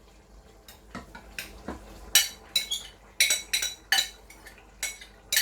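A metal spoon clinking and scraping against metal cookware: a run of sharp, ringing knocks, few at first, then about two or three a second from about two seconds in.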